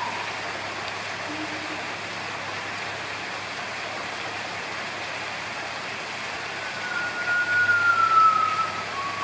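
Steady background hum of distant traffic, with a faraway siren's wail sliding slowly downward in pitch near the end.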